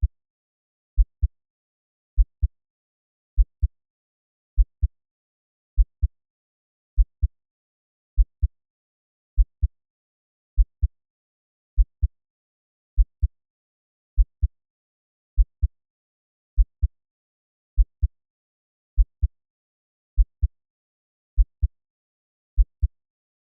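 Slow, steady heartbeat at 50 beats per minute: a low 'lub-dub' double thump about every 1.2 seconds, the second thump a little higher in pitch, with nothing heard between beats.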